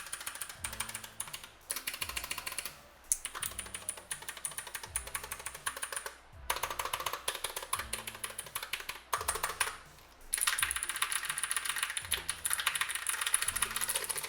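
Fast typing on a Gigaware MnemoniX KG1 mechanical keyboard with Otemu blue switches: dense runs of clicky keystrokes, broken by short pauses several times.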